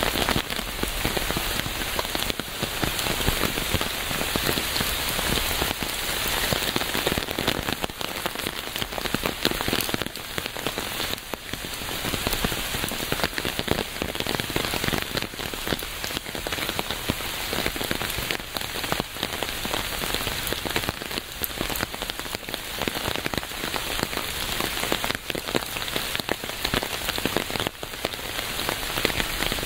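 Steady rain falling on a surface, a dense patter of many small drop impacts.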